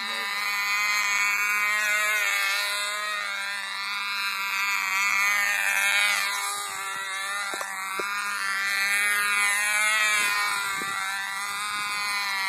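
Vintage Cox model airplane's tiny two-stroke glow engine running flat out with a high-pitched buzz. Its pitch and loudness rise and fall over and over as the control-line plane circles past.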